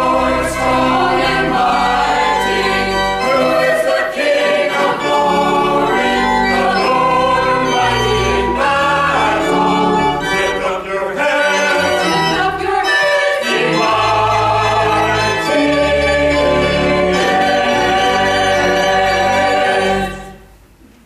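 Church choir of mixed voices singing an anthem, with sustained low bass notes underneath. The singing stops near the end, leaving faint room tone.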